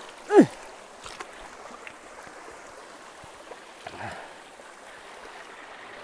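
Shallow stream flowing steadily over rocks. About a third of a second in, a person lets out a short, loud cry that falls quickly in pitch.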